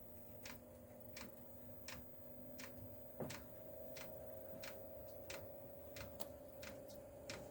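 Diesel heater fuel dosing pump ticking evenly, about three clicks every two seconds, as it primes fuel up to the burner. A faint steady hum runs underneath.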